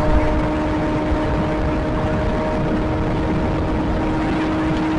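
Kawasaki ZX-25R's four-cylinder engine running at a steady pitch while cruising in fifth gear at about 95 km/h. Heavy wind and road noise buffets the microphone over the engine.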